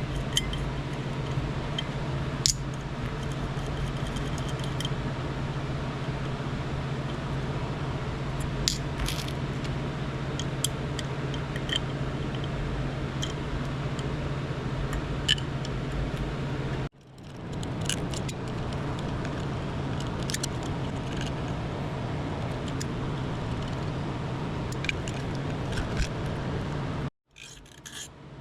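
Scattered metal clicks and scraping from a wrench working the nuts on a condenser fan motor's cover, over a steady low hum.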